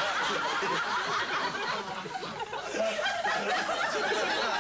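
Studio audience laughing, a long continuous wave of laughter that dips briefly about halfway through and then swells again.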